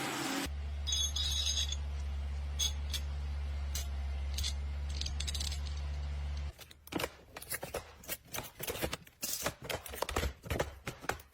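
Machinery running with a steady low hum and a few brief high chirps and clicks. About six and a half seconds in the hum stops and gives way to a rapid, irregular run of sharp clicks and clinks.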